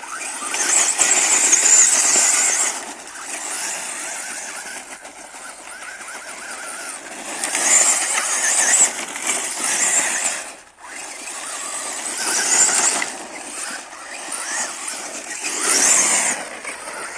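ECX Torment RC short-course truck with a 4000kv brushless electric motor, whining under throttle in several surges as its tyres scrabble and spray loose dirt and gravel.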